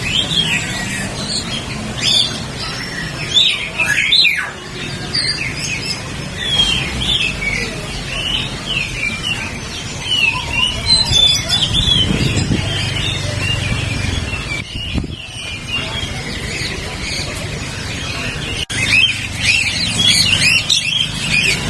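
Many caged songbirds chirping and calling at once, a dense overlapping chatter of short high chirps, over a low murmur of voices.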